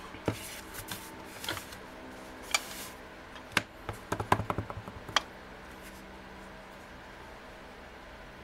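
Light clicks and taps of crafting tools being handled: a foam stamping mat set down, then a quick run of small taps about four seconds in as a clear acrylic stamp block is worked on an ink pad. The last few seconds hold only faint room hum.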